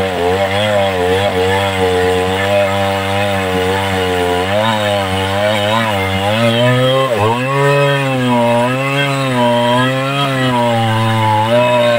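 Two-stroke chainsaw cutting into the trunk of a large rain tree. The engine pitch wavers up and down as the chain loads and frees, and drops sharply about seven seconds in.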